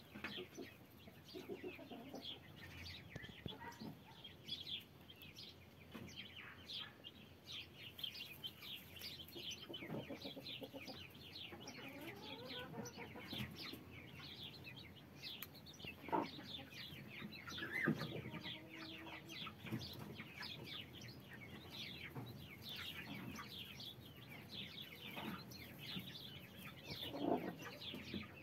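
A brood of day-old chicks peeping without a break, many short falling peeps overlapping, while the broody mother hen clucks low a few times.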